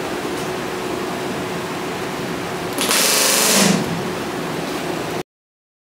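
Pneumatic rivet gun driving an aluminium rivet in one rapid hammering burst of about a second, bucked from the inside against a tungsten bucking bar, over a steady shop hiss. The sound cuts off abruptly near the end.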